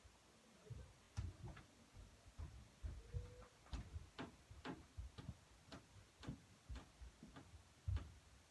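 Faint, irregular knocking and tapping, about two knocks a second, each a dull thud with a sharper click on top.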